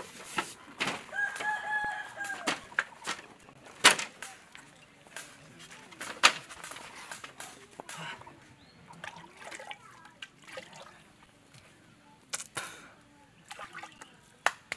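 A rooster crows once, a single held call about a second long, early in the stretch. Scattered sharp knocks and taps run through the rest, the loudest about four seconds in.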